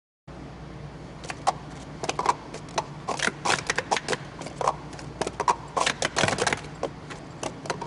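Plastic sport-stacking cups clattering in quick, irregular clicks as they are stacked up and brought back down on a mat, over a steady low hum. The sound begins after a moment of silence.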